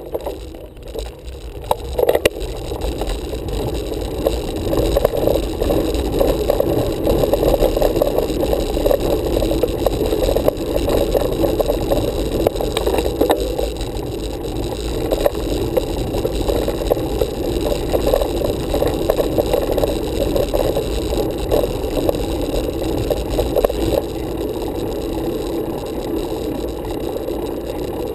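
Road bicycle rolling on asphalt, a steady rumble and rattle carried through the handlebar-mounted camera, with a few sharp knocks in the first two seconds.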